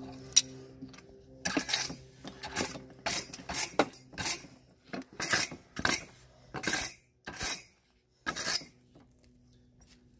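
Blacksmith's tongs working a red-hot low-carbon steel bar clamped in a vise, twisting it: a sharp click, then a run of about ten short metallic scrapes and clanks as the tongs grip and turn the bar.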